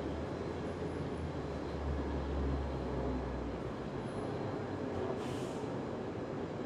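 Downtown city street traffic noise: a steady wash of sound with a deep vehicle rumble that fades away a little past halfway, then a brief hiss about five seconds in.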